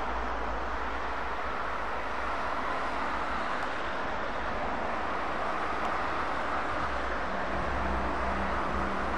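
Steady road traffic noise from passing cars, with the low hum of a Scania G380 truck's diesel engine growing stronger about seven seconds in as the truck approaches.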